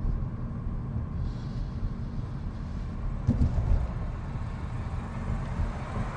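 Car engine and tyre road noise while driving, a steady low rumble, with a louder bump about three seconds in.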